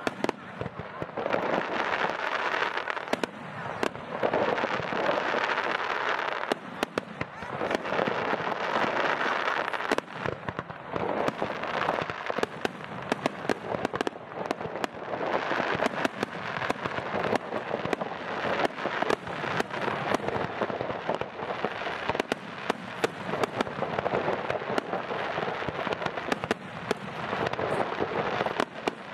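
Aerial fireworks display: a continuous barrage of shell bursts and crackling, with many sharp bangs and a few brief lulls.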